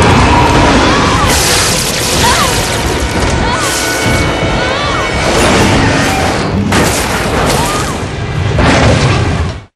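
Action-movie soundtrack: dramatic music mixed with repeated booms and crashes of explosions and destruction, with short pitched cries over the top. It cuts off abruptly near the end.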